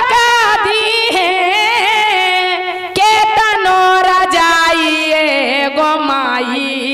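A woman singing a Magahi devotional folk song (Shiv charcha geet) through a microphone. She draws out a long, wavering line that slowly falls in pitch.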